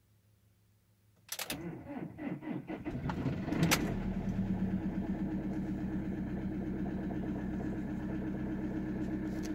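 Citroen Jumper van's diesel engine cold-starting at −17 °C: the starter cranks for about two seconds, the engine catches and flares briefly, then settles into a steady idle.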